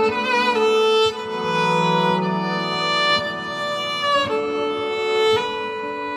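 Viola played through a loop pedal: sustained bowed notes layered over looped lower parts, with wavering vibrato near the start and slides between notes about four and five seconds in.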